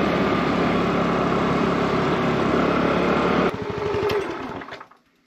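Motor scooter being ridden along a road: steady engine and road noise that changes and thins about three and a half seconds in, then fades out near the end.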